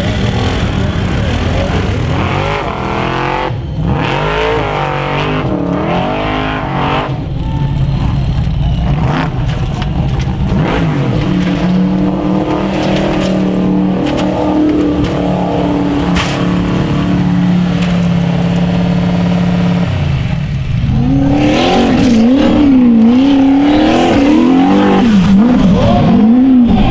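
Off-road hill-climb buggy engines revving hard, held at a steady high pitch for several seconds in the middle, then swinging rapidly up and down in pitch near the end as the throttle is worked.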